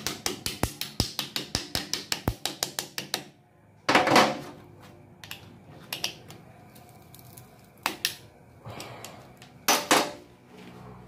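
Ratchet of a piston ring compressor clicking rapidly, about eight clicks a second for some three seconds, as it is tightened around an engine piston to squeeze its rings. A few separate knocks follow, the loudest about four seconds in and near the end.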